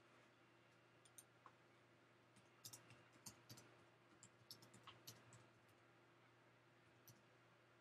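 A scattered run of sharp clicks and snaps, about a dozen spread over four seconds and bunched near the middle, like twigs cracking as a great blue heron works at sticks on the shore. A faint steady electrical hum lies under them.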